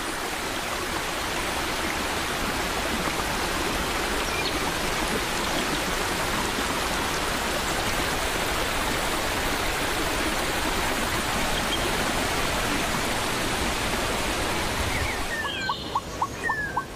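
Whitewater river rushing and tumbling over rocks, a steady, dense sound of water. It fades near the end, where bird chirps take over.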